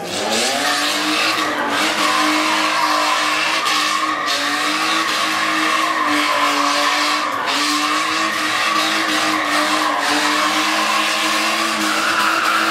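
A BMW 3 Series coupe spinning donuts: its engine revs up about half a second in and is held high and steady while the rear tyres spin and skid on the loose, dusty asphalt.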